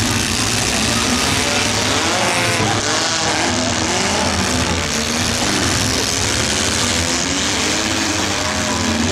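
Several compact demolition derby cars' engines running and revving together, a dense steady din with faint rising and falling revs.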